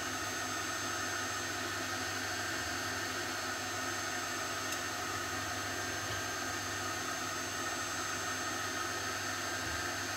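Steady even hiss with a low hum and a few faint steady tones above it, with no change and no distinct strokes or knocks.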